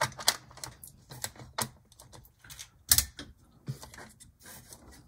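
A string of irregular plastic clicks and light knocks as an HO-scale model locomotive chassis is handled and set onto the track rails, the loudest about three seconds in.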